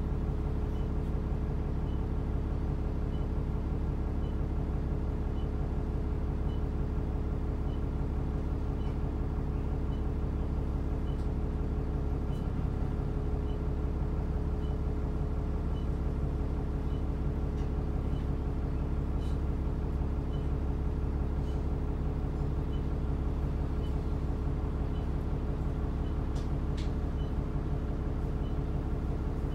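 ADL Enviro400 double-decker bus running at a steady engine speed: a constant drone with a deep rumble and a steady whining tone above it, the strange noise this bus is known for. A faint tick repeats evenly about one and a half times a second.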